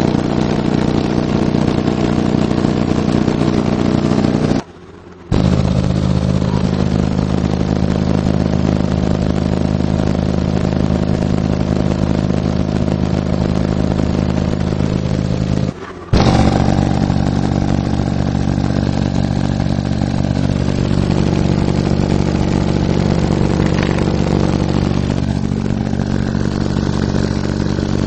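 Four Alpine Type-R 12-inch subwoofers in a ported enclosure tuned to 35 Hz playing loud, steady deep-bass test tones. The tone cuts out briefly twice, and a new tone starts after each break.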